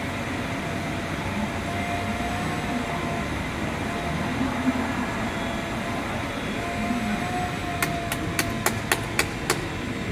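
Steady outdoor background rumble with a faint wavering hum, and near the end a quick run of about seven sharp clicks from the metal leg braces' fittings being handled.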